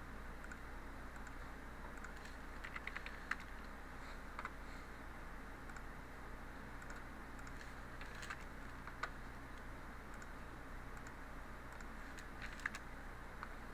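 Computer keyboard keys and mouse clicks in small scattered clusters a few seconds apart, as dimension values are entered in CAD software, over a steady low hum.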